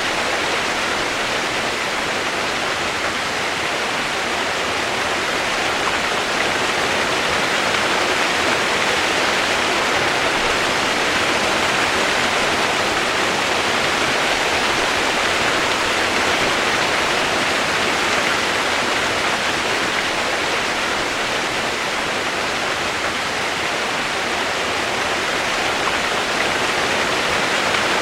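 Steady heavy rain used as white noise: a dense, even hiss with no single drops, pauses or changes standing out.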